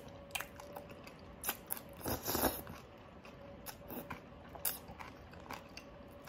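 Close-up eating sounds: a person slurping glass noodles (sotanghon) and mung bean soup off a fork and chewing, with irregular wet mouth clicks and smacks. The loudest stretch comes about two seconds in.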